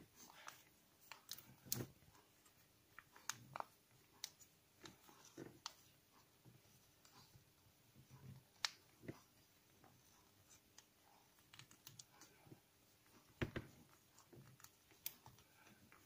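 Paper being creased and folded by hand into an origami model: faint, scattered crinkles and short sharp snaps.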